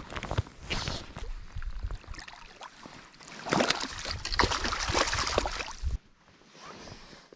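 Water splashing and sloshing, louder in the middle, then cutting off abruptly about six seconds in.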